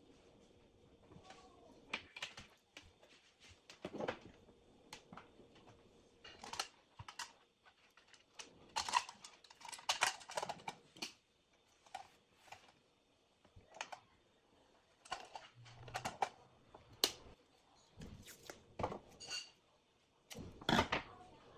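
Irregular clicks, knocks and scrapes of hands working at a table: twisting wire ends together, shifting a hollow plastic star-shaped lamp and setting down tools. Near the end comes the crackle of masking tape pulled off its roll and torn.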